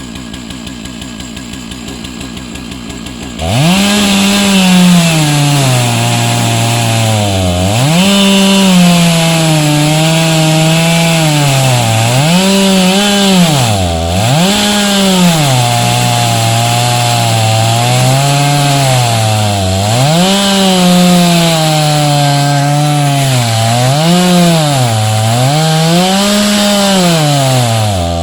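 Chainsaw in an Alaskan chainsaw mill running quietly and steadily at first, then throttled up about three and a half seconds in to rip lengthwise through a log. Its engine speed sags and recovers again and again as the cut loads it.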